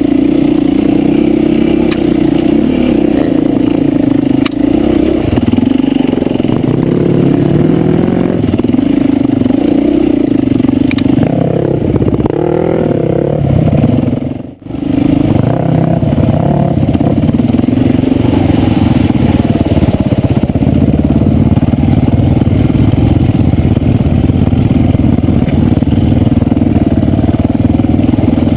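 Four-stroke single-cylinder dirt bike engine running on a trail ride, its pitch rising and falling as the throttle is worked. The sound breaks off briefly about halfway through.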